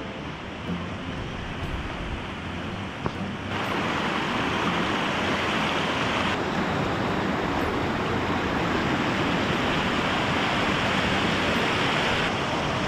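Glacial river water rushing over rocks in a steady rush, louder from about three and a half seconds in.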